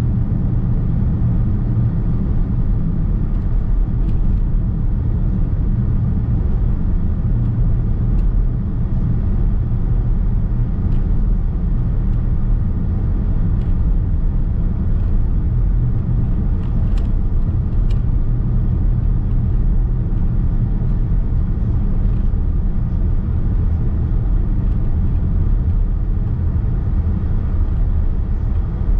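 Steady rumble of a Nissan X-Trail Hybrid driving, tyre and road noise heard from inside the cabin, with a few faint ticks along the way.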